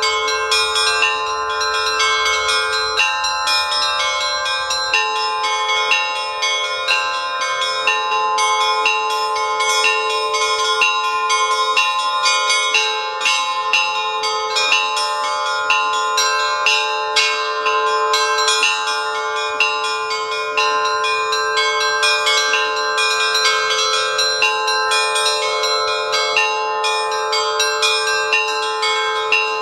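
Russian Orthodox-style church bell ringing (zvon): a set of small and middle bells struck by their clappers in a quick, continuous repeating pattern, the tones ringing on and overlapping.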